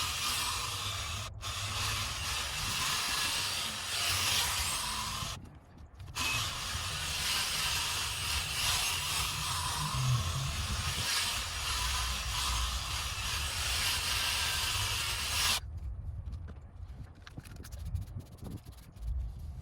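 Sanding pad scrubbing over a plastic headlight lens with a steady hiss. It stops briefly about five seconds in and cuts off abruptly about three-quarters of the way through.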